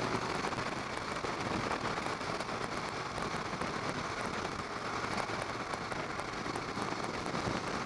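Steady rush of wind over the microphone while riding a motorcycle, with the Harley-Davidson Low Rider S's V-twin engine running underneath.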